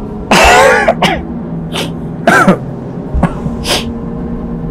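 A man coughing in a fit of about six harsh coughs; the loudest comes about a third of a second in and another about halfway through. It is the breathless cough of a man sick with Covid.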